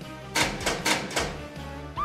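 Hard plastic clattering, about five quick knocks within a second, as a toy police car is handled, over steady background music.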